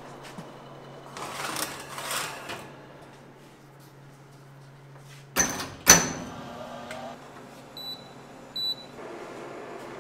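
A metal baking tray of ring molds scraping onto a commercial oven's rack, then two sharp metallic bangs as the oven door is shut. Two short electronic beeps follow from the oven's controls.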